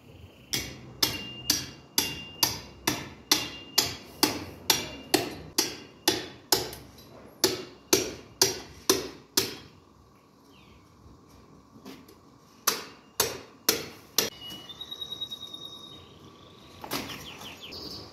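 A quick series of sharp strikes, about two a second, as a blade is worked on a hanging, skinned lamb carcass. After a pause of a few seconds, four more strikes come, and then one last one near the end.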